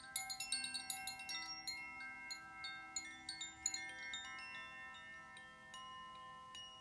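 Shanti chimes ringing: a quick cluster of bright, high metal strikes in the first second and a half, then scattered strikes, with many tones ringing on together.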